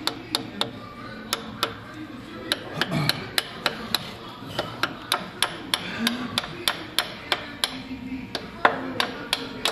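A long run of sharp hammer taps, about three a second, while the crank trigger wheel is being put back on.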